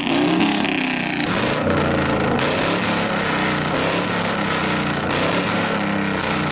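GMC Sierra's V8 idling through its large single exhaust tip with the choppy, uneven lope of an aggressive aftermarket camshaft, a Brian Tooley Racing Stage 4 NSR cam.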